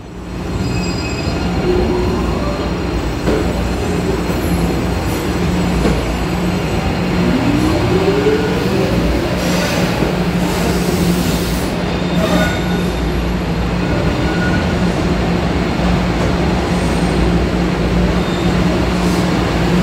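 MBTA Blue Line subway train pulling out of an underground station: motors and wheels on the rails build up within the first two seconds, then run steadily with a low hum, and a rising motor whine comes about seven seconds in as the train speeds up.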